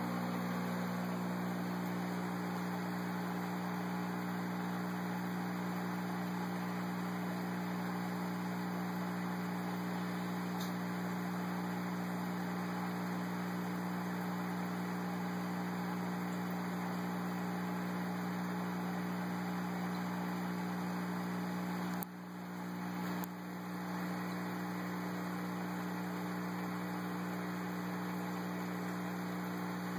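Steady electrical hum from running aquarium equipment, under an even hiss of moving water and air bubbles. The hum drops out briefly twice, about two-thirds of the way through.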